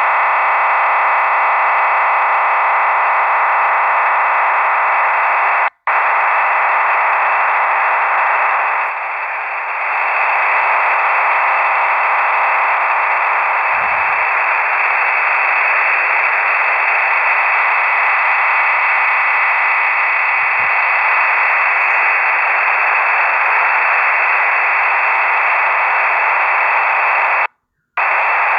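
Shortwave radio noise from a WebSDR receiver, a dense steady hiss held within the receiver's narrow audio band with faint steady tones running through it: the weird noise found on this frequency. It cuts out briefly about six seconds in and again near the end.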